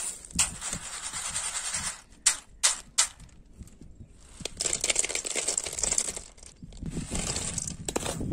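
Dry roasted peanuts in their shells and hot sand rattling in a wire-mesh skimmer as it scoops through a pan of sand and tips the nuts into an aluminium bowl. There are a few sharp clicks about two to three seconds in, then thicker rattling and clattering in the second half.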